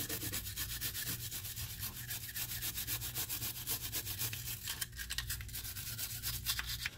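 Gun-cleaning brush scrubbing the solvent-wet inside of a pistol frame in rapid back-and-forth strokes, loosening fouling.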